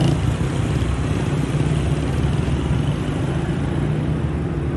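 Steady hum of vehicle engines from street traffic, cars and a motorcycle running close by, with a constant low rumble.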